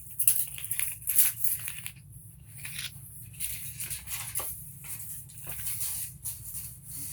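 Toolbox Hardware 16-foot steel tape measure being handled, its blade pulled out: a string of irregular clicks and rasping scrapes, loudest about a second in.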